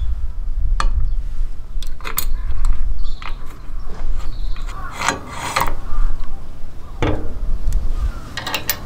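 Metal parts being handled and fitted: scattered clicks and short scrapes as a steel bracket is set against an angle grinder's guard and a wing nut is threaded on, over a low rumble.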